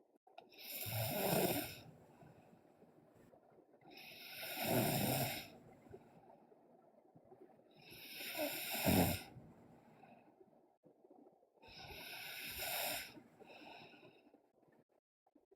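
Snoring: four snores about four seconds apart, each lasting about a second, with quiet in between.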